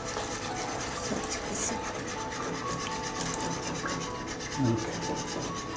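Wire whisk scraping and stirring in a saucepan of sautéed mushrooms while poultry stock is poured in, a steady low rubbing sound.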